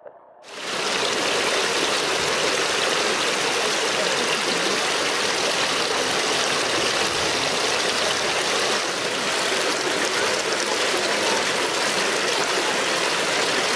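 Steady rush of running water that starts suddenly about half a second in and holds at an even level.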